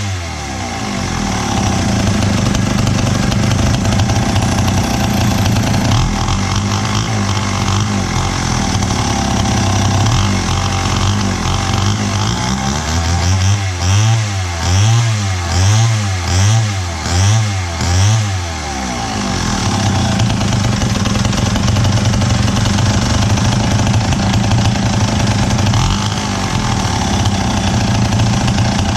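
Wright C-50 77 cc two-stroke chainsaw engine running on test after a carburettor rebuild. Its note holds steady, then about halfway through the throttle is blipped about six times in quick succession, each rev rising and falling, before it settles back to steady running.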